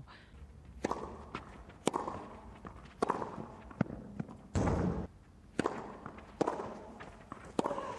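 Tennis ball struck by rackets in a rally, sharp hits roughly once a second, each followed by a short echo, with one louder burst of noise about halfway through.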